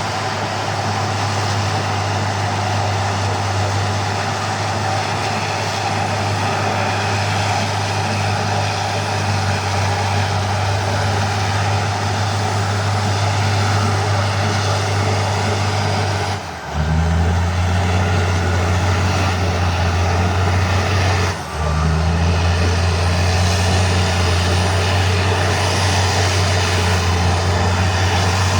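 Bulldozer's diesel engine running steadily with a deep hum. It is briefly cut twice, about two-thirds of the way through and again some five seconds later, and the engine note is a little deeper after the first break.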